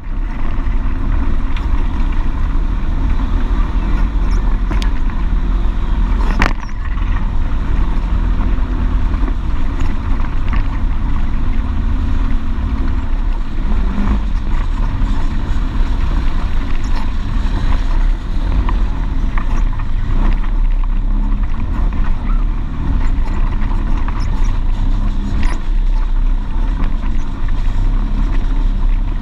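Polaris RZR XP 1000 side-by-side's twin-cylinder engine running as it drives a rough, rocky dirt trail, its pitch rising and falling with the throttle, with the knocks and rattles of the bumps. One sharp knock about six and a half seconds in.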